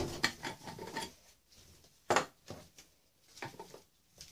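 Hollow plastic knocks and light rubbing as ABS plastic pipe fittings are handled and pushed together on a wooden workbench, with a sharp knock at the start and a louder one about two seconds in.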